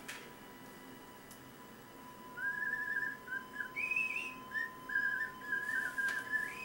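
A person whistling a wavering tune in short phrases, starting about two seconds in, over a faint steady high tone.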